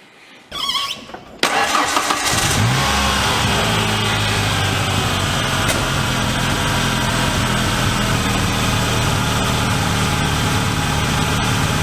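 1991 Ford Ranger's 2.3-litre four-cylinder engine cranked briefly and catching about a second and a half in, flaring up in speed, then settling into a steady idle.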